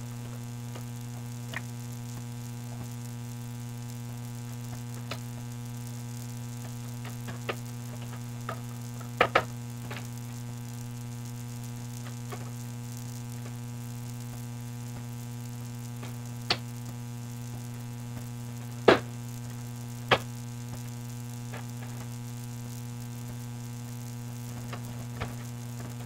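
Steady electrical hum throughout, with a few scattered light clicks and taps from a 2.5-inch SSD in its metal bracket being handled and pressed into a laptop's drive bay, a pair about nine seconds in and three more later on.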